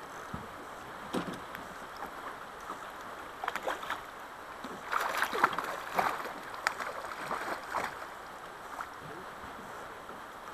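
Water moving around a drift boat, with scattered knocks and splashes from the boat while a salmon is played on the rod, loudest about five to six seconds in.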